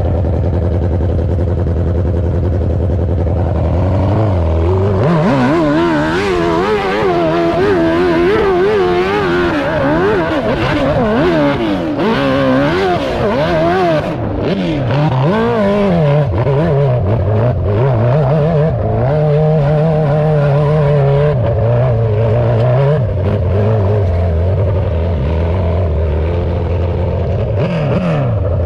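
Custom Suzuki RMZ1000 hill-climb dirt bike engine idling for about four seconds, then revving hard up a steep climb with the throttle rising and falling repeatedly. Over the last several seconds, as the bike tops out, it settles to a steadier, lower note.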